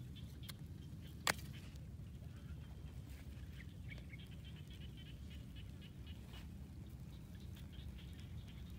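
Outdoor field ambience: a steady low wind rumble on the microphone with faint, scattered bird chirps, and one sharp click about a second in.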